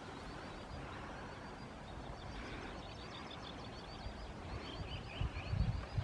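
Small songbirds singing: a high, fast run of short repeated notes through the first half, then another quick trill, over a steady outdoor hiss, with a few low thumps near the end.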